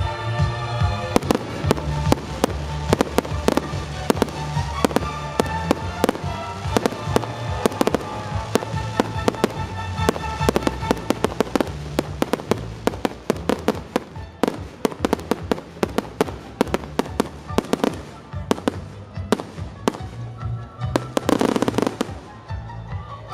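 Aerial fireworks display: shells and cakes bursting in quick succession, dozens of sharp bangs, with a short hissing rush near the end. Music plays throughout.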